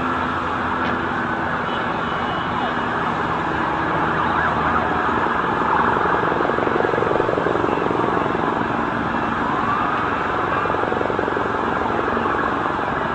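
Several emergency-vehicle sirens wailing at once, their pitches rising and falling and overlapping, over a steady wash of city traffic noise.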